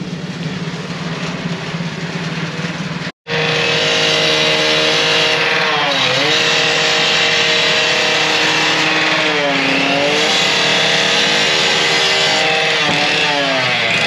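Worksite machine motor running at high speed. About three seconds in, the sound cuts and comes back louder, and its pitch then drops and recovers three times as the motor takes load. Before the cut there is a lower, steadier engine hum.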